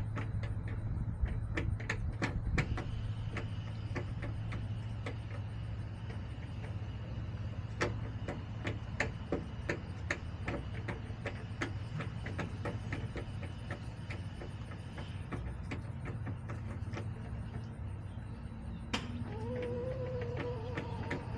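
Chickens pecking at a hard surface: sharp irregular taps, quick-fire at first and sparser later, over a steady low hum. Near the end a hen gives a short, low wavering call.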